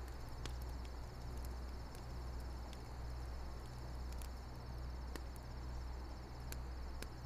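Crickets chirping in a steady, pulsing high trill over a steady low hum, with a few sharp clicks scattered through.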